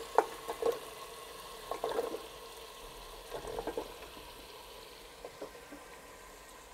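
Masala and oil sizzling in a pressure cooker as sliced carrots are tipped in from a steel bowl and pushed in with a wooden spoon. A few groups of light knocks and scrapes sound over the low sizzle.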